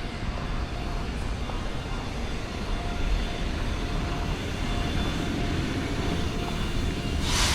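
Steady low rumble of outdoor background noise, with a brief rush of hiss near the end.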